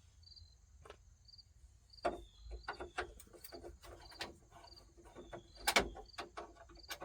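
Insects chirping in a steady rhythm, a short chirp about every half second or so over a constant high hum, with scattered clicks and knocks from plastic and metal dash trim being handled and pried loose; the loudest knock comes a little before six seconds in.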